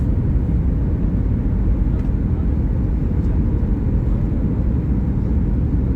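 Steady low rumble of jet engine and airflow noise heard inside an airliner cabin on approach to land.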